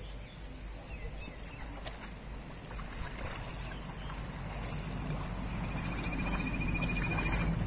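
Shallow pond water sloshing and splashing as legs wade through it and a bamboo-framed push net is shoved along under the surface, growing steadily louder.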